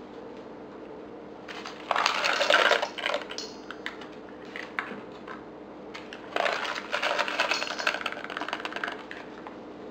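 Raisins being poured into a large mixing bowl of chopped stuffing ingredients: two spells of quick, dense rattling clicks, about two seconds in and again around six seconds in, with scattered small ticks between, over a faint steady hum.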